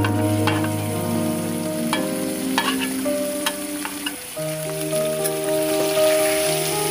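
Pork pieces sizzling in hot oil in a wok as they are scraped off a steel plate with a metal spatula and stirred, with scattered sharp clicks of the spatula against the metal. Background music with held notes plays underneath.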